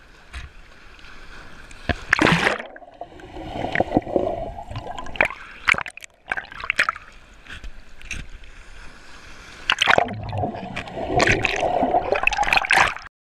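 Sea water splashing and gurgling close up, breaking in and out of the surface, with loud splashes about two seconds in and again from about ten seconds in.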